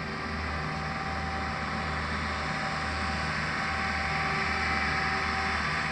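Marine travel lift's engine running steadily as it carries a boat in its slings, with a low pulsing hum under a steady hiss, growing slightly louder.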